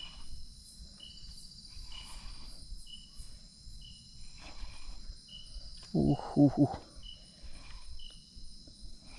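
Night insects buzzing steadily in the forest, with a short chirp repeating about once a second. About six seconds in there is a brief, louder low-pitched sound.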